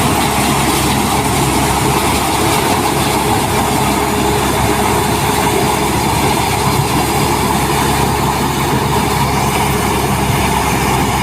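Zoomlion combine harvester with a corn header running steadily: a continuous engine hum under a dense mechanical rattle and whir.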